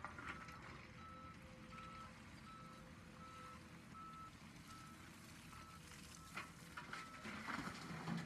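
Heavy plant's reversing alarm beeping steadily at one pitch, about two beeps a second, over the low running of earthmoving machinery engines. A few clattering knocks come near the end.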